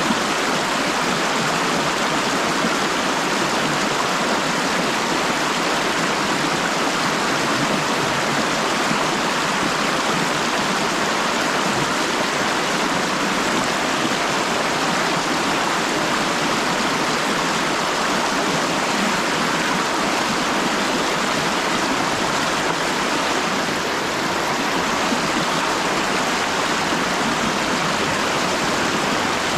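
Shallow river riffle, water rushing steadily over rocks with a constant, even splashing roar.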